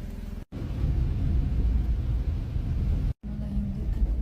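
Low rumbling background noise, strongest in the bass, that cuts out completely twice for a moment: about half a second in and about three seconds in.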